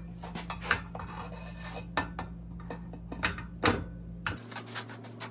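Irregular light metallic clicks and knocks of a motorized bicycle's triple-tree fork and headset bearing parts being fitted into the frame's head tube.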